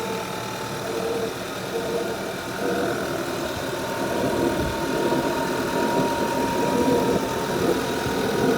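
Audi A5 2.0 TFSI turbocharged four-cylinder running at a steady cold idle. Over the engine note there is an unusual rushing air sound, like a vacuum cleaner, that occurs only when the engine is first started cold.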